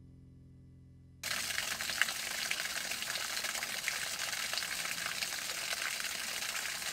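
Thin waterfall trickling down a mossy rock face and splashing steadily, starting abruptly about a second in. Before it, the faint tail of a low musical note dies away.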